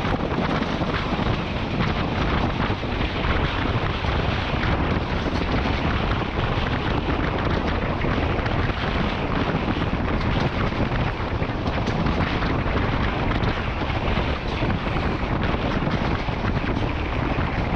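Wind rushing steadily over a microphone held out of a moving passenger train's window, mixed with the train's running noise on the track.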